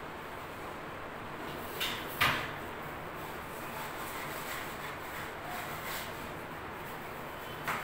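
Modular kitchen wall cabinet being handled: two sharp knocks about two seconds in, the second louder, from its stainless steel fittings. Near the end comes a knock as the cabinet doors are swung shut.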